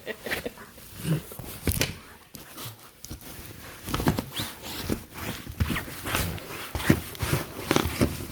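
A dog making a series of short vocal sounds, reacting to someone fake-snoring on its bed.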